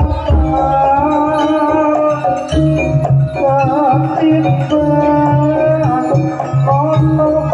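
Live jaranan gamelan music: hand drums keep a repeating rhythm under metallophone notes and a lead melody line that bends in pitch.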